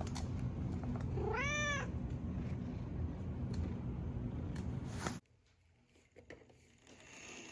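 A domestic cat meows once, a rising-then-falling call about a second and a half in, over a steady low rumble that cuts off suddenly about five seconds in.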